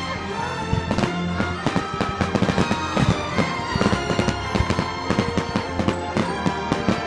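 Fireworks going off, many sharp bangs and crackles thickening from about a second in, over music with steady held notes.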